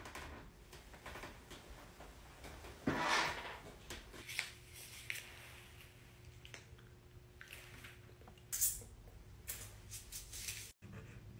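A chair squeaking now and then: a string of short, faint squeaks and creaks, with louder ones about three seconds in and again near the ninth second.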